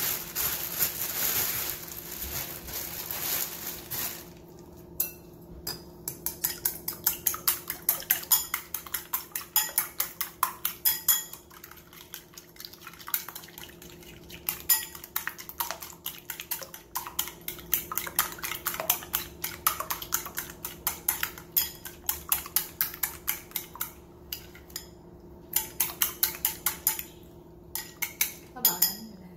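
Eggs being beaten with chopsticks in a bowl: rapid clicking of the chopsticks against the bowl's side, in runs broken by short pauses. For the first few seconds a plastic bag crinkles.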